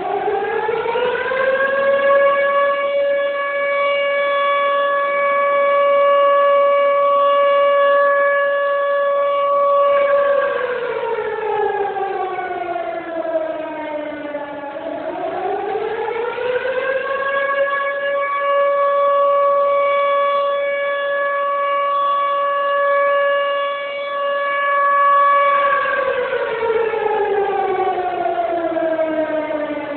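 Air-raid siren wailing: it rises to a steady tone and holds it for about eight seconds, slides down slowly, then rises and holds again before sliding down near the end.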